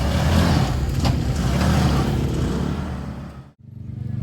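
Off-road vehicle engine running with a steady low drone. The sound cuts off suddenly about three and a half seconds in.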